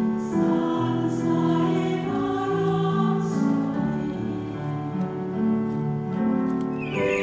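Choir singing a Korean Buddhist choral song in long held chords that change about once a second. Near the end, quick high bird-like chirps come in over the singing.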